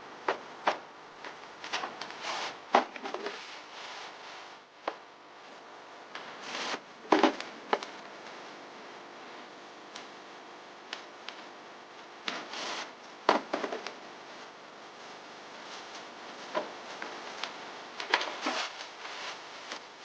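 Food packaging and containers being handled and set down while filling a fridge: irregular taps, clicks and short rustles, with a few louder knocks about seven, thirteen and eighteen seconds in.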